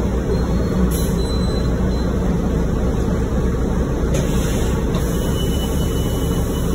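Cabin noise of a 2005 New Flyer D35LF transit bus under way: the Cummins ISL straight-six diesel running steadily with road and drivetrain noise, a constant low drone.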